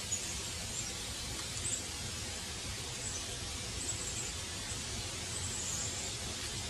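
Steady rush of a flowing stream, with faint, short, high chirps recurring over it.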